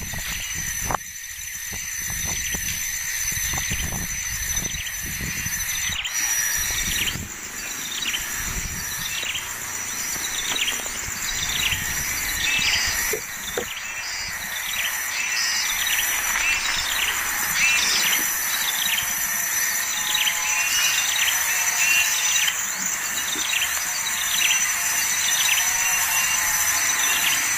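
Baby birds chirping, with short falling calls repeated several times a second from about six seconds in, over a steady high-pitched hum. Low thumps and rumbles come in the first few seconds.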